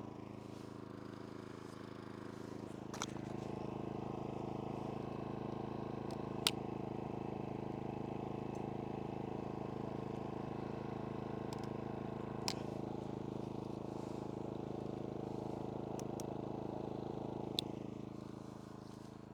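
An engine idling steadily, with a few sharp clicks over it; it grows a little louder about three seconds in and eases off near the end.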